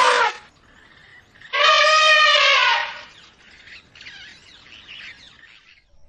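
African elephant trumpeting. A short blast cuts off just after the start, and one long call of about a second and a half begins about one and a half seconds in. Birds chirp faintly in the background.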